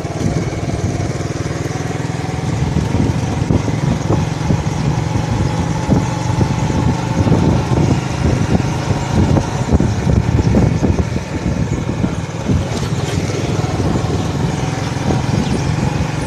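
A 70cc single-cylinder four-stroke motorcycle engine running steadily while the bike is ridden. The sound is a bit louder and rougher for several seconds in the middle.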